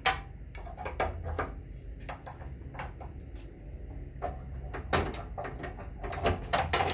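A T5 fluorescent tube being fitted into the lampholders of a fluorescent light fixture: a series of irregular clicks and knocks as the tube is pushed and seated, the sharpest about a second in, at five seconds and near the end.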